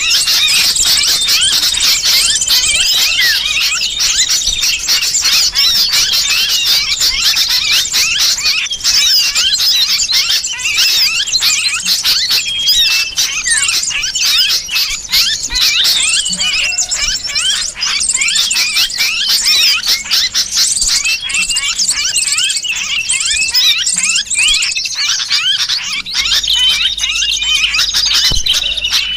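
Bird-lure recording: a dense, unbroken mass of small birds' high chirps and squeals, mixed with the shrill distress calls of a sooty-headed bulbul (kutilang) as if caught, the alarm cries used to draw in other small birds.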